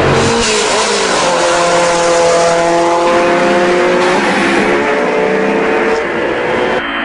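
Race-car engine sound effect, engines running and revving with the pitch shifting up and down.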